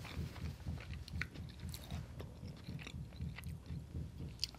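Close-miked chewing of a mouthful of lamb biryani, mouth closed, at about three chews a second, with occasional small wet mouth clicks.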